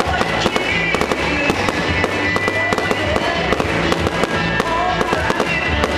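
Fireworks display going off in a dense run of bangs and crackles, several a second, with music playing underneath.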